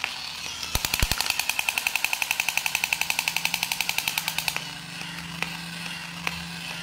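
Battery-powered crawling soldier toy firing its machine-gun sound, a rapid even rattle of about ten shots a second that starts just under a second in and stops after about four seconds. The toy's small motor whirs steadily under it as the figure crawls, with a few single clicks near the end.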